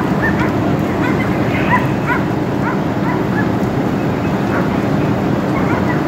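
A dog yipping and whimpering in short high calls through the first half, over a loud, steady mechanical rumble with a low hum, the running of the fire engine.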